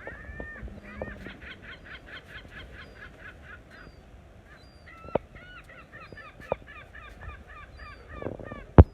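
Geese honking in rapid runs of about four calls a second, two long runs with a short break between. A few sharp knocks cut in, the loudest near the end.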